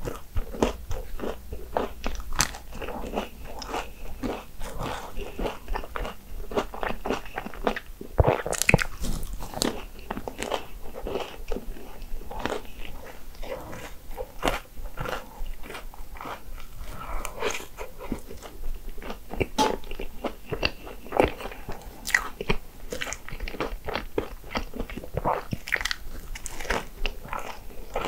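Close-miked eating of Hong Kong egg waffles: repeated bites and chewing, with many short crisp crunches.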